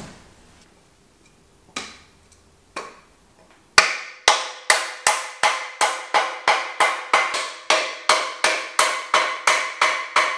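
A headset cup being knocked into a bike frame's head tube with a block of wood. Two single knocks come first, then a steady run of about eighteen blows, roughly two and a half a second, each leaving the frame ringing briefly; the blows stop just before the end.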